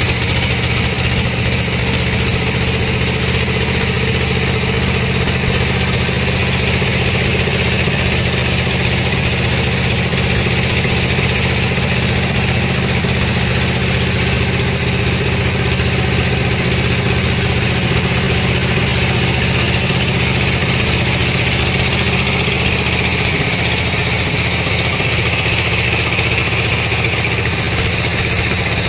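Sawmill machinery running steadily: a constant engine-like hum with a hiss above it, holding the same pitch without cutting pauses.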